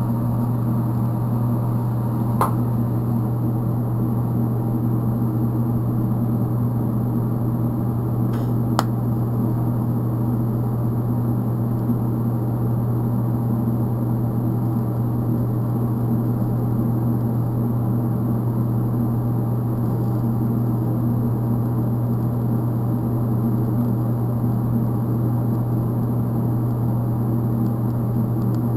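Steady hum of DC TIG welding on 304 stainless steel with an Eastwood TIG 200, the arc held unbroken. Two light clicks come about two and a half and eight and a half seconds in.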